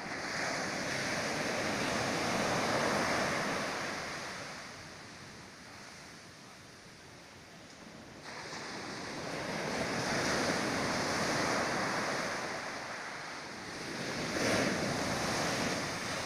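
Sea surf breaking and washing up a sandy beach. The rush swells and fades three times as successive waves come in; the second rises abruptly about eight seconds in.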